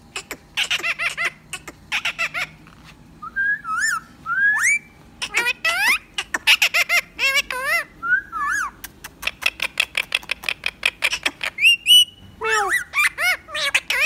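Indian ringneck parakeet calling: quick runs of short chattering notes mixed with rising and falling whistles.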